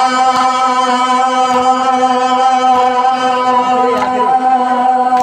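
Noha recitation: a male voice, amplified through a microphone, holds one long unbroken sung note at a steady pitch.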